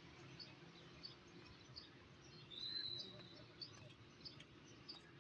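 Near silence: faint outdoor ambience with a low hum, small birds chirping now and then, and one short high call about two and a half seconds in.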